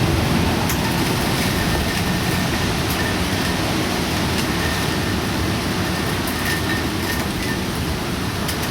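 Typhoon wind and rain: a loud, steady rushing noise with a few faint scattered ticks.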